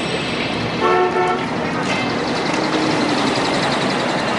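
A short vehicle horn blast about a second in, a single steady multi-note tone, over steady outdoor background noise.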